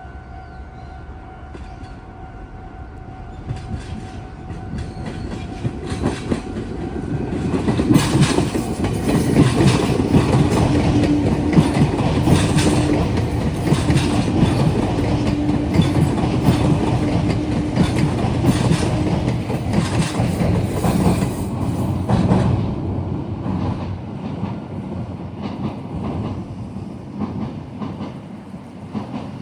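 A Meitetsu electric train passes close by, its wheels clattering over the rail joints and junction points. The sound builds over several seconds, is loudest from about 8 to 22 seconds in with a steady hum running under the clatter, then fades. A level-crossing warning tone fades out in the first few seconds.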